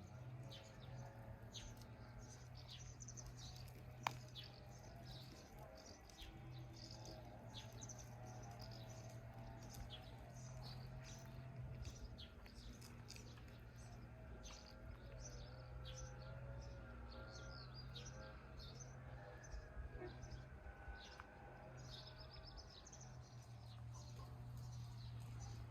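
Faint birdsong: many short high chirps repeating throughout, with lower warbling calls through the middle, over a low steady hum. One sharp click about four seconds in.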